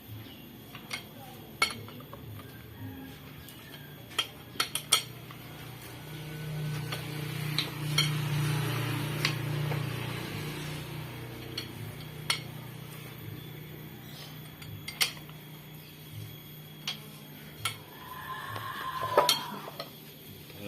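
Loose metal clinks and knocks of tools and bolts against a Mitsubishi L300 diesel engine's block and cylinder head as the head is fitted and its bolts set in. A low steady hum swells up in the middle and fades away.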